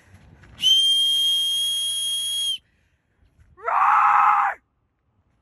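A woman screaming to scare off a brown bear: a long shrill, steady high-pitched scream of about two seconds, then after a short pause a shorter, lower yell that rises in pitch.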